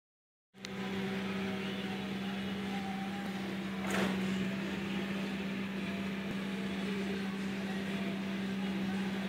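Walnut harvesting machine running steadily, a constant engine hum. It starts about half a second in, with a brief louder swell around four seconds in.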